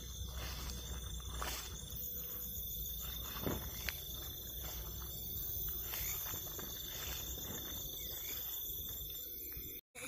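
Night insects, crickets, trilling in a steady chorus of high, even tones, with a couple of faint clicks in the middle. The sound cuts out for an instant near the end.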